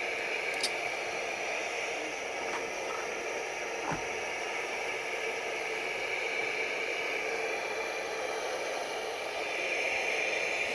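Steady FM radio static hiss from the JAKATV sunrise alarm clock's built-in radio, with no station coming through: weak reception with the wire antenna not hung up.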